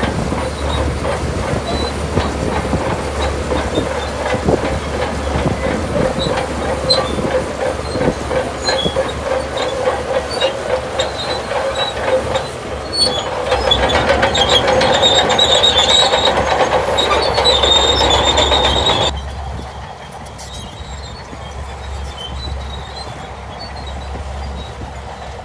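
Shantui DH17 crawler bulldozer at work, its diesel engine running under a metallic clanking and high squealing from the steel tracks. The sound swells from about thirteen seconds in, then drops suddenly about six seconds later.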